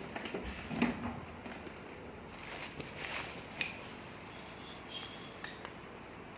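Light scattered clicks and taps of soldering work on a circuit board connector, the loudest just under a second in, with a short faint hiss around three seconds in.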